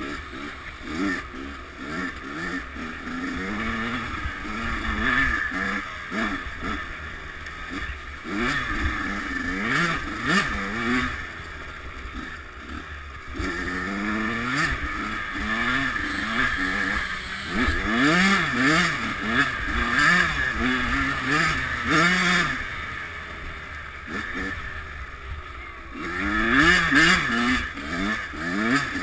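Kawasaki KX100 two-stroke dirt bike engine ridden hard, its pitch climbing and dropping over and over as the throttle opens and shuts.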